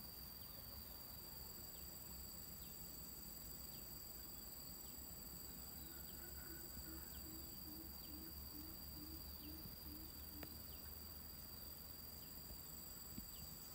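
Faint outdoor ambience: a steady high-pitched drone with short high chirps about once a second. From about six to ten seconds in, a run of low, short animal calls repeats about twice a second.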